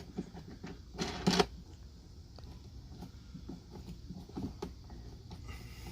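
Handling noises while a mower handle is being fitted: two louder short knocks about a second in, then faint scattered clicks and rattles.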